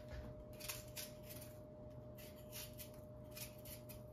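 A faint, irregular run of short, crisp cutting or scraping strokes, several a second, as chicken feet are trimmed with a blade, over a faint steady hum.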